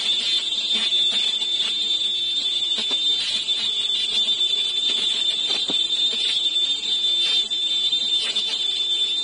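Semi-automatic KN95 mask body making machine running: a steady high-pitched whine with scattered clicks and a lower tone that wavers up and down.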